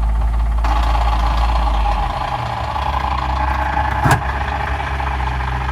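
1997 Jeep Wrangler TJ's 2.5-litre four-cylinder engine running, its note changing about two seconds in, with one sharp knock about four seconds in.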